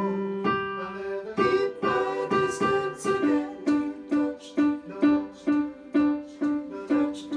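Music for a choral rehearsal piece: a steady accompaniment of short, plucked-sounding repeated notes, about two a second, with a held melody line above in the first second or so.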